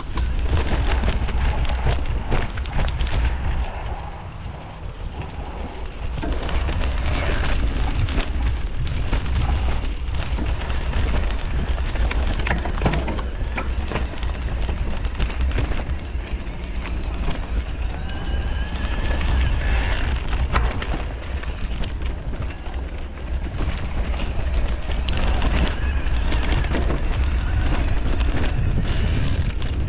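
Mountain bike ridden fast down a rough trail: wind buffets the action-camera microphone with a heavy rumble, the tyres roll noisily over the ground, and the bike rattles and clatters over bumps throughout, with a short lull about four seconds in.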